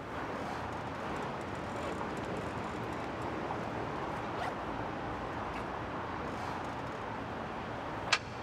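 Steady city street ambience, a low even hum of traffic and surroundings, with one sharp metallic click near the end.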